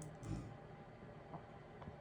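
The end of a person's snoring breath in the first half second, then the heater's steady white-noise hiss, with a couple of faint ticks.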